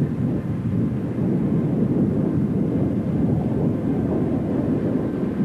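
Deutsche Reichsbahn passenger coaches rolling past, their wheels on the rails giving a steady low rumble.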